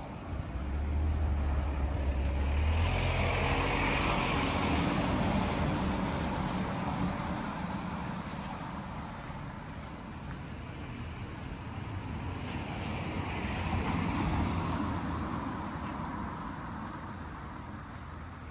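Two cars passing along a wet street, each a low engine hum with tyre hiss that swells and fades. The first, the louder, passes a few seconds in; the second comes about two-thirds of the way through.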